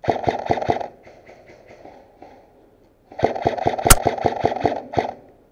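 Airsoft electric guns firing full-auto bursts, about ten shots a second: a short loud burst, a fainter burst, then a longer loud burst with one sharp crack in the middle of it.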